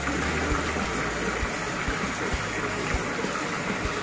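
Water jets spraying from a perforated PVC aerator pipe and splashing steadily onto the pond surface, with a few short low thumps through it.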